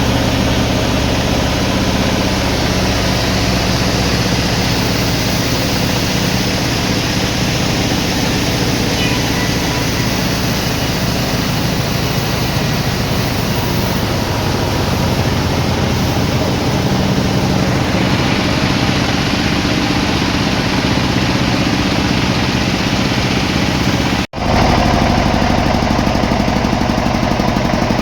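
Sawmill machinery running steadily: an engine with a fast low pulse. About 24 seconds in it cuts off abruptly and a different steady machine sound takes over.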